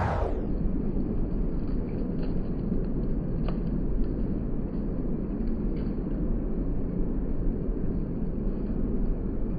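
Strong wind rumbling against the microphone in a steady low roar.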